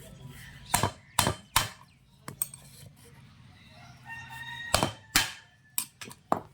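Sharp knocks, three in quick succession and then several more near the end, as when a hammer strikes tractor brake parts. A rooster crows once about four seconds in.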